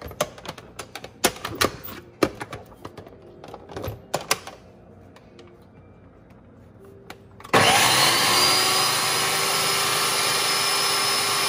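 Plastic clicks and knocks as a food processor's lid is fitted and locked onto the bowl. About two-thirds of the way in, the motor starts with a rising whine and then runs loud and steady, chopping spinach leaves.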